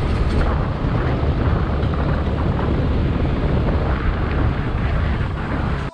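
Motor scooter being ridden at speed: steady engine and road noise mixed with heavy wind rumble on the microphone.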